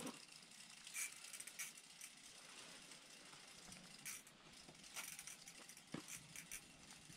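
Faint, irregular clicking of a small ice-fishing spinning reel being cranked as a hooked fish is reeled up through the ice hole.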